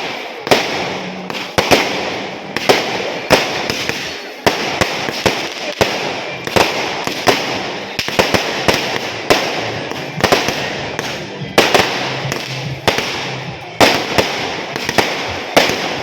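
Firecrackers going off in a long, continuous run: a dense crackle punctuated by louder sharp bangs every half second to a second.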